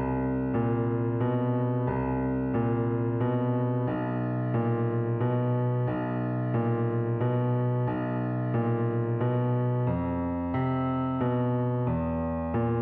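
Instrumental music: keyboard chords repeated at a steady pulse of about three a second, the harmony shifting about ten seconds in.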